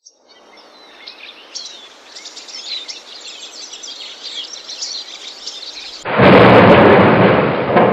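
Birds chirping over a faint background hiss, then, about six seconds in, a sudden loud clap of thunder that rolls on as a deep rumble.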